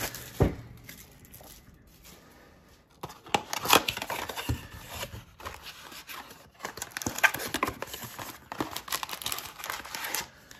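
Plastic shrink-wrap crinkling and a cardboard trading-card box being torn and pried open by hand, in irregular crackles, rustles and scrapes. It is quieter for the first few seconds, then busier from about three seconds in.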